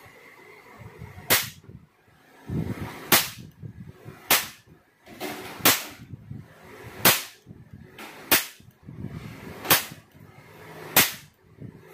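Toy cap-gun revolver firing roll caps: eight sharp cracks, about one every 1.3 seconds.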